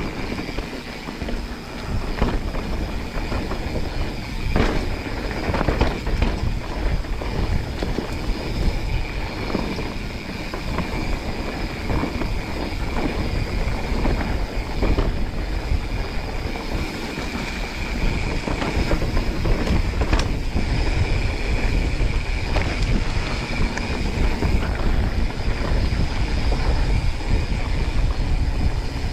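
Wind buffeting the microphone while a mountain bike rattles and knocks over a rough downhill trail. A steady high whine runs underneath.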